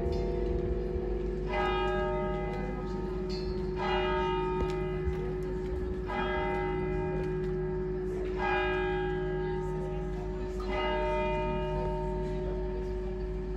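A single church bell tolling slowly, struck five times a little over two seconds apart; each stroke rings on over a steady low hum from the bell.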